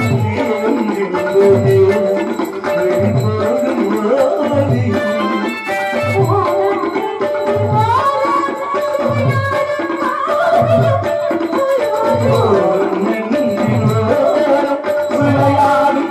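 A woman singing a Tamil folk-drama song over a microphone, accompanied by tabla. The drums keep an even low beat, a little faster than one stroke a second.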